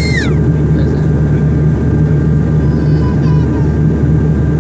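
Jet airliner engines running with a loud, steady low rumble and a faint steady whine above it. A high sliding tone falls away just after the start.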